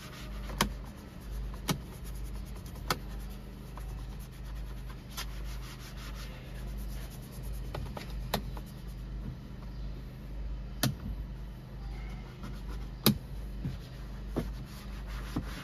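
Applicator pad being rubbed over a car's plastic dashboard to work in dressing, a soft scrubbing with about eight sharp clicks or taps spread through it. A steady low hum runs underneath.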